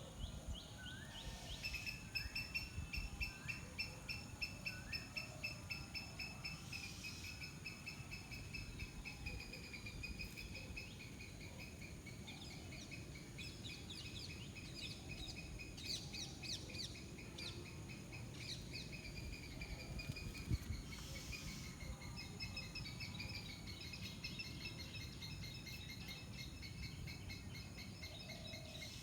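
Outdoor ambience of birds and insects: a high, rapidly pulsing trill nearly throughout, with scattered short chirps, over a low rumble.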